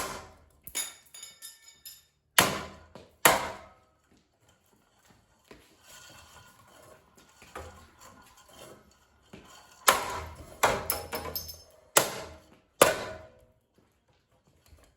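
Ceiling fan's plastic blades being struck hard again and again, each hit a sharp crack with a short ringing rattle. There is a cluster of about four strikes, a quieter stretch with faint scraping, then about four more strikes near the end.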